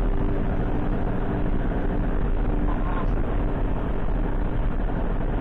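Steady road and engine noise of an ambulance cruising at highway speed, heard from inside the cabin, with a deep rumble and no braking or other sudden events.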